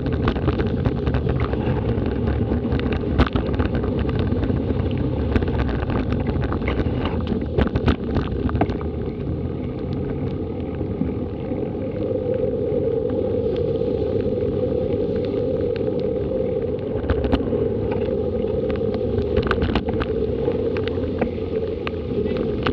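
Steady rushing wind and road noise on a bicycle-borne action camera's microphone, with the tyres hissing over wet tarmac and scattered small knocks from the bike. About halfway through, the sound shifts as the wheels run into floodwater covering the street.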